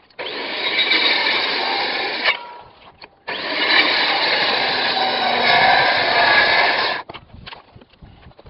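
Circular saw cutting across a timber hip rafter in two passes, about two seconds and then about four seconds with a short gap between, notching out the bird's mouth. Each pass stops abruptly.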